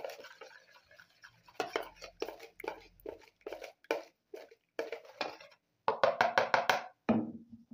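A utensil whisking a liquid spice marinade in a plastic bowl, clicking and scraping against the bowl in uneven strokes. Near the end it speeds up into a quick run of about eight taps.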